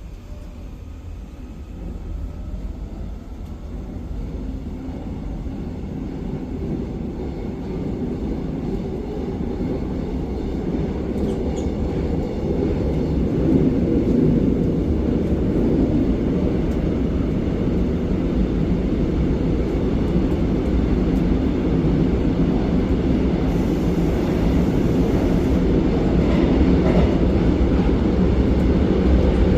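A 2003-built Korail electric multiple unit running, heard from inside the passenger car: a steady low rumble that grows louder over the first fifteen seconds as the train gathers speed, then holds steady.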